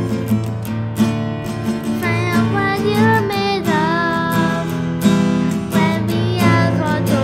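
Acoustic guitar strummed in a steady rhythm while a girl sings along; her voice comes in about two seconds in.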